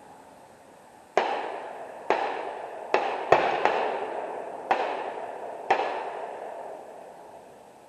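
Seven gunshots at irregular intervals, three of them in quick succession, each followed by a fading echo.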